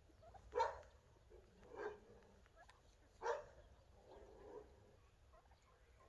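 Domestic turkeys gobbling: four short, separate calls about a second apart, the first and third the loudest.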